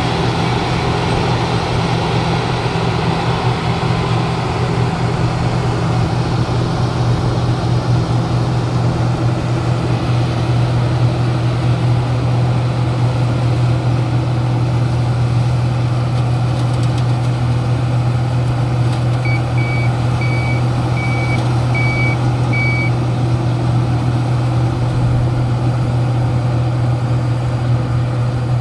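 Rice combine harvester's diesel engine running steadily and loud. About two-thirds of the way through, a short run of about six high beeps from its reversing alarm sounds over the engine.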